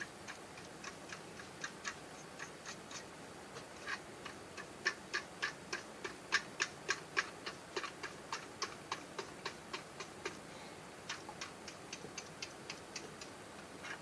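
Rapid, regular ticking, about four ticks a second, loudest in the middle.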